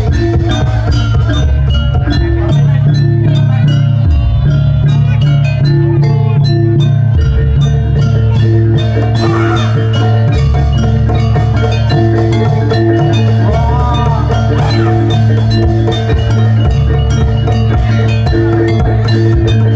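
Javanese jaranan gamelan music. Bronze mallet instruments play repeating figures over a steady low hum, with quick drum strokes keeping a steady beat.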